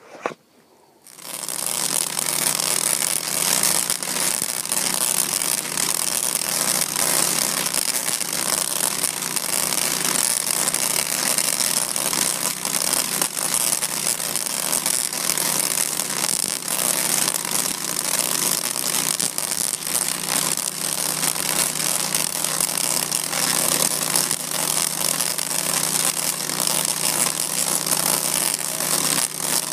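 Large Tesla coil firing, its sparks making a loud, continuous crackling buzz with a steady low hum underneath, starting suddenly about a second in.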